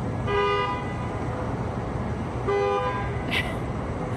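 Driverless Waymo cars' horns honking: two short honks about two seconds apart, over a steady low background hum. The honking is an automatic warning the cars give when another car backs up toward them.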